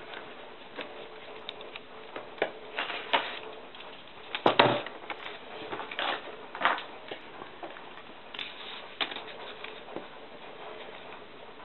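Thin phonebook paper being folded and creased by hand: irregular crinkles and rustles, with the loudest crackle about four and a half seconds in.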